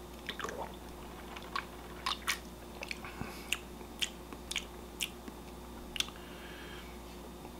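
Mouth sounds of a man drinking canned water and tasting it: a scattering of small wet clicks and lip smacks, about a dozen over six seconds.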